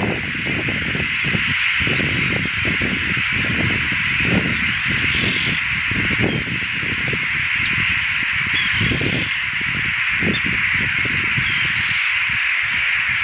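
Black-headed gull colony calling en masse, a dense continuous din of many birds at once with a few sharper single calls standing out, from a colony in the air over people among its nests. Wind buffets the microphone in uneven gusts.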